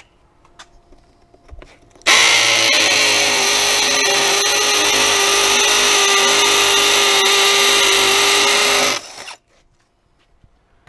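Cordless hammer drill with a half-inch masonry bit boring into a brick pillar, enlarging a pilot hole to take a lead anchor. It starts about two seconds in, runs steadily at one pitch for about seven seconds, then stops.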